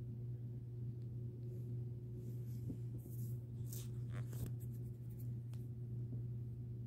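Siamese cat purring steadily as it is petted, a continuous low hum. A few soft scratchy rustles about three to four seconds in, from a hand stroking its fur.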